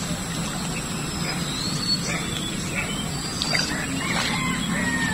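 Birds chirping in short calls over a steady low hum. A few light splashes come near the end as a shot fish thrashes at the water surface.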